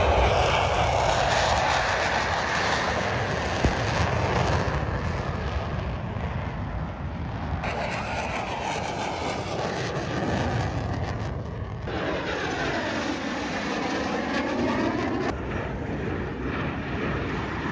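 Airplane engine roar as aircraft fly past at an air show, with the noise changing abruptly a few times. About two-thirds of the way in, a sweeping, phasing whoosh comes as one passes overhead.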